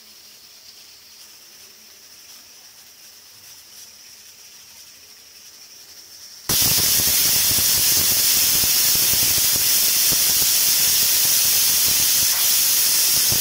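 Pressure cooker whistling: a faint steady steam hiss, then about six and a half seconds in the weight valve lifts and a loud, steady jet of steam blows out. The whistle is the sign that the cooker has come up to pressure.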